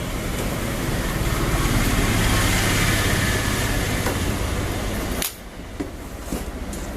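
Radio-controlled crawler truck driving, a steady whir and rumble of its electric motor and drivetrain over rough ground. The sound drops sharply about five seconds in and carries on quieter.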